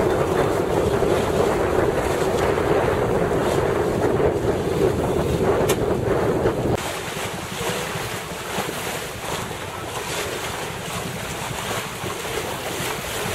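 Wind buffeting the microphone and water washing past the hull of a small wooden gaff cutter under sail. The noise drops suddenly about halfway through and goes on more quietly.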